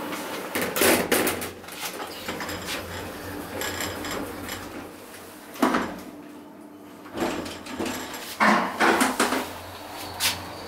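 KONE elevator car's sliding doors closing, with a series of knocks and thuds from the doors and car mechanism; the loudest clatter comes near the end.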